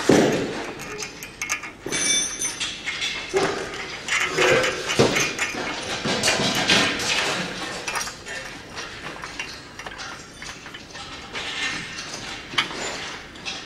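Metal clinks and knocks of steel brackets, a rod and bolts being handled and fitted onto a steel machine frame, with a sharp knock right at the start.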